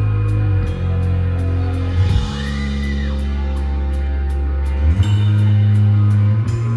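Live alternative rock band playing without vocals: sustained bass notes that change every couple of seconds under guitar and a drum kit, with a steady cymbal tick about three times a second.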